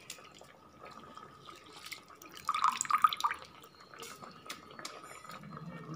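Soaked basmati rice dropped by hand into boiling water in a pressure cooker: wet patters, drips and small splashes, loudest in a cluster around three seconds in, over a faint steady tone.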